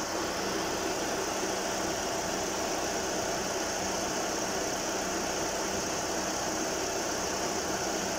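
Toyota Corolla engine idling steadily at operating temperature, with its electric radiator cooling fan running with a steady whir, switched on by the air conditioning.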